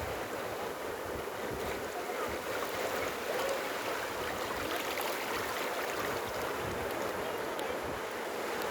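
Sea waves washing onto a beach: a steady hiss of surf.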